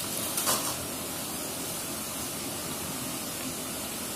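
Steady rushing of a waterfall's water, an even hiss throughout, with a brief rustle about half a second in.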